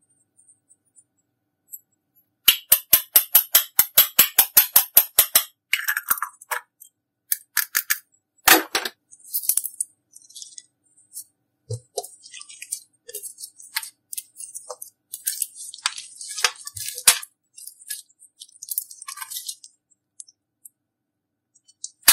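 Slime being worked by hand: a quick, even run of sharp clicks, about eight a second, then scattered clicks, crackles and rattly pops.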